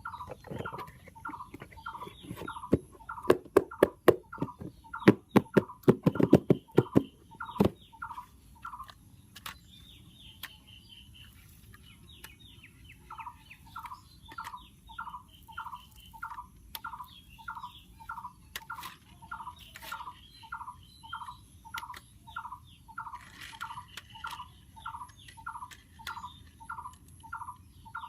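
A bird's short call repeated evenly about twice a second, stopping for a few seconds partway through and then resuming. Over the first several seconds a run of loud sharp clicks and knocks sounds over it.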